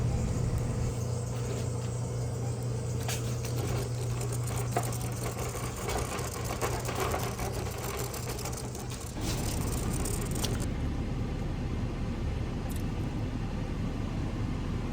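Car running, heard from inside the cabin: a steady low hum with scattered clicks and rattles. The sound changes abruptly about nine seconds in.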